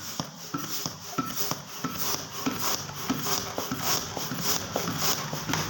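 Long rubber snake balloon being inflated with a hand pump: rhythmic pump strokes about two a second, with the rubber rubbing and clicking as it fills.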